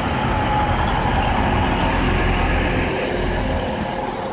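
Siemens Class 185 diesel multiple unit, two units coupled, running slowly past along the platform as it comes in to stop: diesel engines and wheels on the rails make a steady rumble with a few steady whining tones over it, easing a little near the end.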